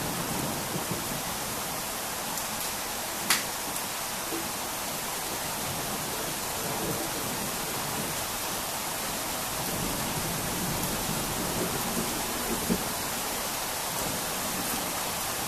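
Steady rain falling during a thunderstorm, with one sharp tap about three seconds in.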